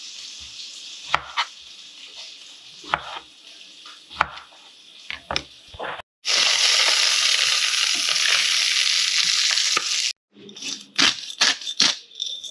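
A kitchen knife strikes a cutting board several times while slicing strawberries, over a faint sizzle. About six seconds in, pompano fillets sizzle loudly in a frying pan for about four seconds, then stop abruptly. Near the end, a quick run of clicks comes from a black pepper grinder being twisted.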